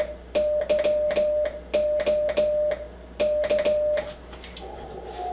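Morse code sent by hand on a straight key: the Icom IC-7300's CW sidetone beeping in uneven dots and dashes, in short groups, with a click at each press and release of the key. Near the end the keying stops and a fainter, steady tone comes up from the receiver.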